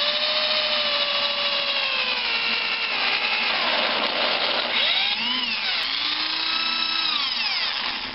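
Power drill turning a reamer dry, without lubricant, through a valve guide bore in a cast-iron engine head. The motor runs steadily under the cut, with a whine that slowly rises and falls, and it stops near the end.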